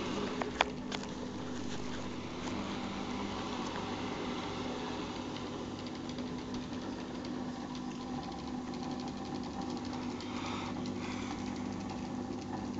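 Siemens Siwamat iQ 714 washing machine running: a steady motor hum with a fast, light rattle over it, and a few sharp clicks in the first second.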